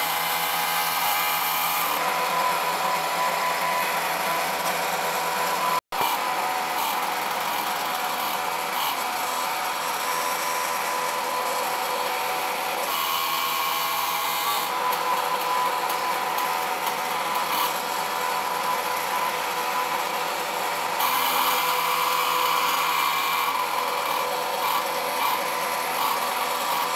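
Camm3 CNC mill's axis motors running steadily as they move the laser head through an engraving job, changing in tone several times as the moves change, with a fan running. There is a brief break in the sound about six seconds in.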